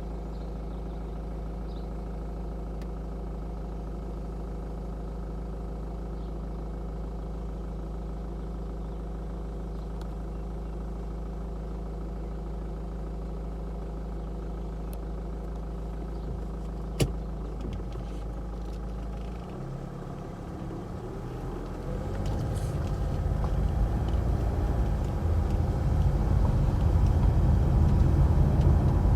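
A vehicle engine running with a steady low hum, a single sharp click about two-thirds of the way through, then a louder rumble that builds toward the end.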